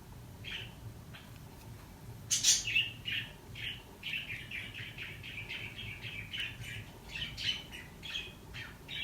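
A small bird chirping: a few separate high chirps, then from about two seconds in a quick, steady run of short chirps at around four a second.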